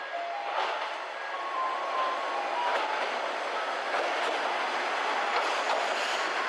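Noto Railway train running on the Nanao Line, its wheels clicking over the rail joints as the running noise grows louder. A few short tones of changing pitch sound in the first few seconds.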